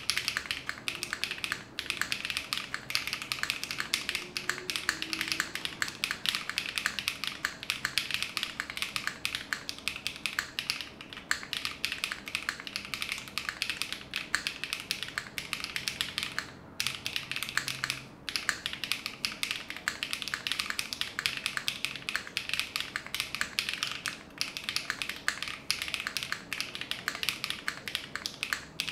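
Continuous typing on a QK60 mechanical keyboard with factory-lubed HMX Swift linear switches, GMK Dandy keycaps and an FR4 plate with no foam: a dense stream of key presses and bottom-outs, broken by a few short pauses.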